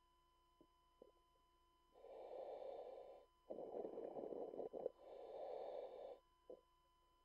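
Diver breathing inside a commercial diving helmet: three breaths of about a second each, the middle one louder and rougher, with a few faint clicks before and after.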